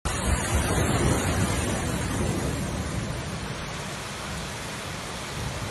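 Heavy downpour: a steady rushing noise of rain with a rumbling low end, a little louder in the first couple of seconds.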